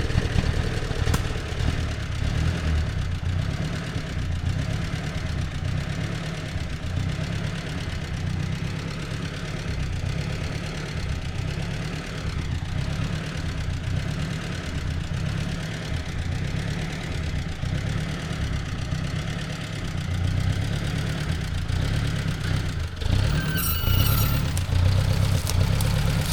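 Old Ford Jubilee tractor's four-cylinder gasoline engine running steadily with a low, pulsing exhaust note.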